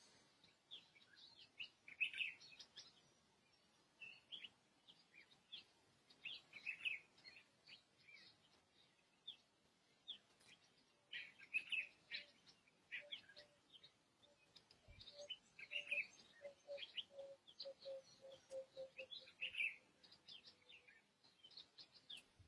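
Faint birdsong: several birds chirping in short, high calls, again and again. In the second half a lower note repeats as a run of quick notes, then fades.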